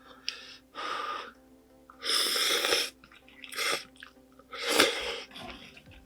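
Spicy ramen noodles being slurped, four airy slurps, the second one longest and loudest.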